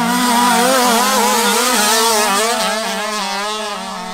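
Off-road motocross motorcycles racing on a dirt track, engines revving up and down in pitch as the riders work the throttle, getting quieter toward the end as they pull away.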